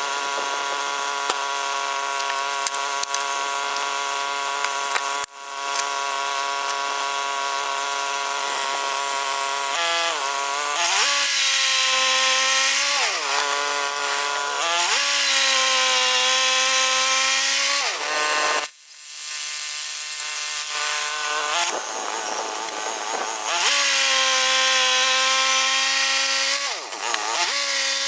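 Portable bandsaw mill's gas engine running steadily, then throttled up about ten seconds in as the band blade cuts through a large pine log, with the hiss of the blade in the wood. The engine pitch sags and recovers several times under load, with a brief drop in the middle.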